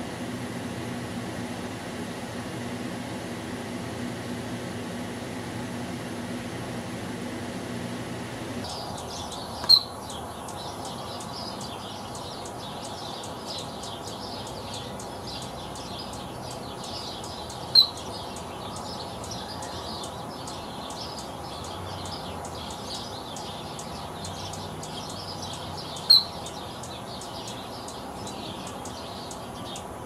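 Three loud, sharp chirps about eight seconds apart, each made by a male Anna's hummingbird's tail feathers at the bottom of a courtship dive. Before them a steady low hum, then from about nine seconds in the faint twittering of small birds.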